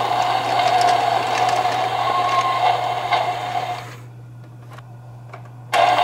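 Battery-powered toy shinkansen train running on its plastic track, a steady whirring of its small electric motor and gears with light clicking. About four seconds in it goes much quieter for under two seconds, then comes back at full level.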